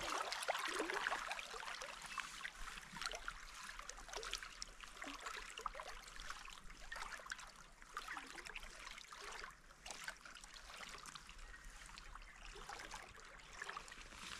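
Shallow river flowing over stones: a soft, steady trickle and babble of moving water.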